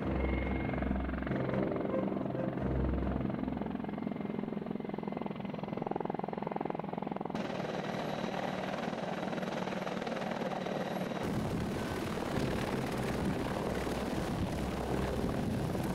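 Mil Mi-35 attack helicopters flying low, the main rotor beating over the whine of the turbine engines. The sound changes suddenly about seven and eleven seconds in, ending with a Mi-35 hovering close to the ground.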